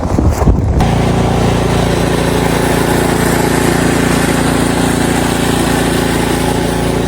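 Wind buffeting the microphone, then, from about a second in, an engine running at a steady, unchanging speed.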